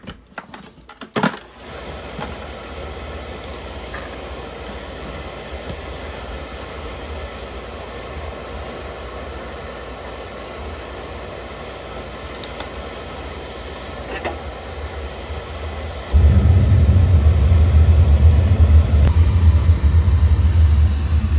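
Oil burner starting up: a few clicks, then the burner motor runs steadily for about fifteen seconds before the oil fires and a much louder, steady low combustion rumble takes over. The burner lights off normally at once, with no sign of its intermittent shutdown.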